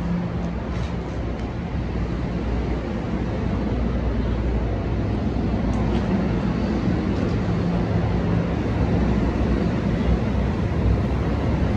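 NJ Transit multilevel passenger coaches rolling past the platform as the train departs and picks up speed: a steady rumble of wheels on rail with a low hum, growing slightly louder across the stretch, with a few faint clicks.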